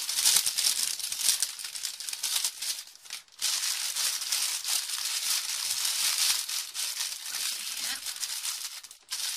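Clear plastic bag crinkling while the packets of small resin diamond-painting drills inside rattle and shake as it is handled and opened, with a brief pause about three seconds in.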